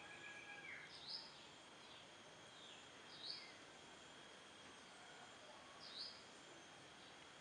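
A bird gives a short falling call three times, about every two and a half seconds, over a faint, steady, high insect trill.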